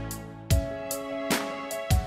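Instrumental background music: held notes over a steady beat, with a new chord and a stronger beat coming in about half a second in.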